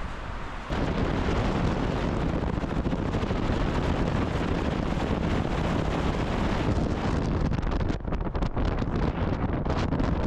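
Wind buffeting the microphone: a loud, rumbling rush that starts abruptly less than a second in and keeps up, fluttering unevenly near the end.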